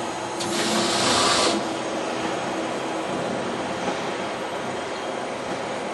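CNC turret punch press running, a steady mechanical clatter with a hum. About half a second in, a louder hiss lasts about a second, and the hum stops about three seconds in.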